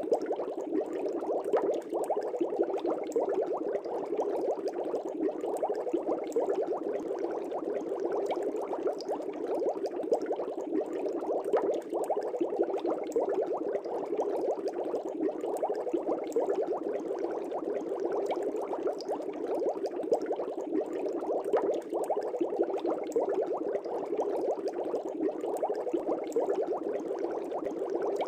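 Fish tank bubbling steadily: air bubbles rising and breaking at the water surface, with a continuous burble of small pops.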